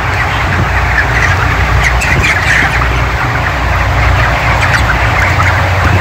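A large flock of 29-day-old broiler chickens calling, with many short squawks and chirps overlapping throughout. Underneath runs the steady hum of the shed's ventilation fans.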